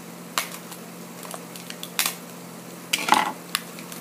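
Scissors snipping open a plastic blind-bag packet: a few sharp snips, with a louder crinkling cluster about three seconds in.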